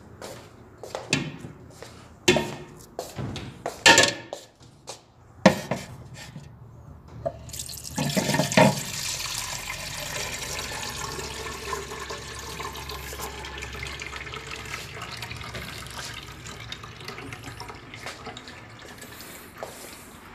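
Several sharp knocks and clatters, then, about eight seconds in, water starts running and keeps running steadily.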